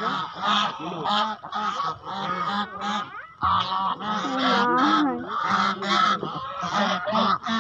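A flock of domestic geese honking loudly, many calls overlapping without pause, as they crowd together to be fed.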